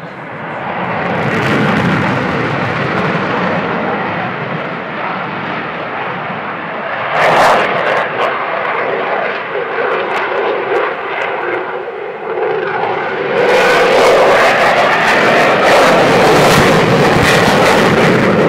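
Eurofighter Typhoon F2's twin EJ200 jet engines roaring loudly through a display pass, with a sharp surge about seven seconds in and a louder, crackling rush from about thirteen seconds in.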